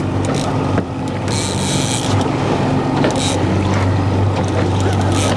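Boat motor running steadily with a low hum, with water hissing and splashing along the hull in short washes.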